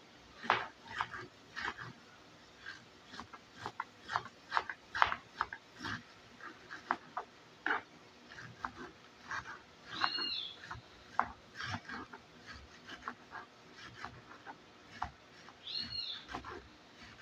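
Kitchen knife shredding cabbage on a cutting board: irregular crisp cuts and taps of the blade on the board. Twice, about ten and sixteen seconds in, a short high squeak is heard.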